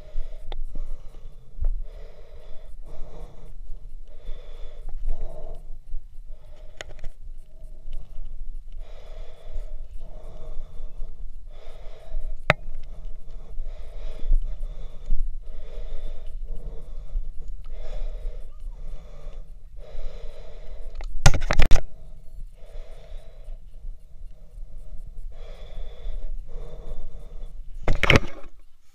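A hiker's heavy, rhythmic breathing close to the microphone, about one breath a second, from the exertion of scrambling up a steep rocky trail. Two brief loud bursts of noise cut in, one about two-thirds of the way through and one near the end.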